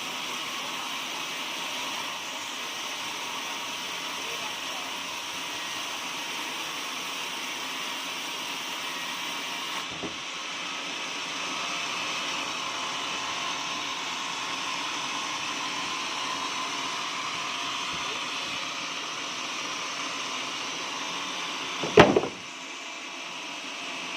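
Portable sawmill running steadily, its saw cutting through an oak log, with one sharp loud knock about two seconds before the end.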